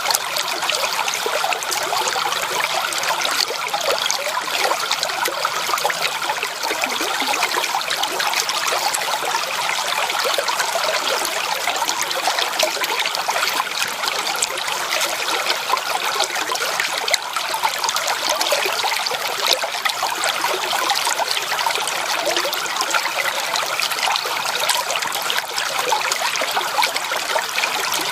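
Shallow creek water trickling and babbling over stones, a steady, even splashing with no pauses.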